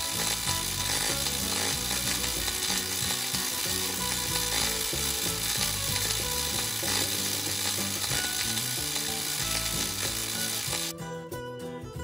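Cartoon sound effect of electric arc welding: a steady sizzling hiss that cuts off about eleven seconds in.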